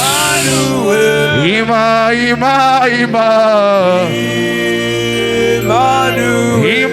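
Live gospel worship music: a man's voice sings long, gliding, chant-like notes over sustained keyboard chords, with a bright crash at the very start.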